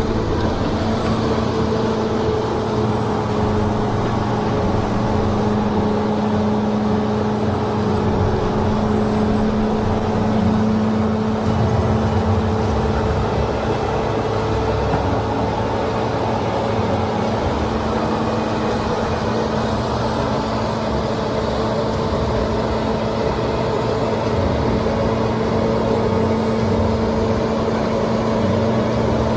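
Heavy machine's engine running at a steady speed, its pitch holding level throughout.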